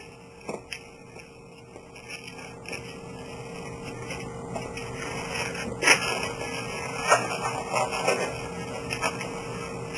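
Latex twisting balloons being handled and rubbed against each other as a thin white 160 is wrapped tightly around a blue balloon, with scattered short sharp sounds, the sharpest about six seconds in.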